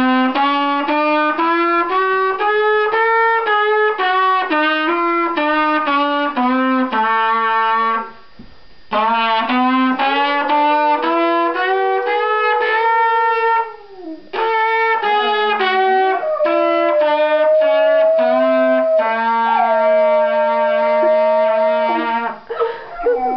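A trumpet playing a melody in stepped notes, breaking off briefly about 8 and 14 seconds in. Under it, a golden retriever howls along, a sliding, bending pitch held against the trumpet's notes, most plainly in the second half.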